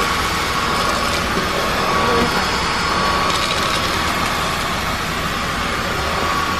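Aposen H250 cordless stick vacuum running steadily: a constant motor whine over a rush of air.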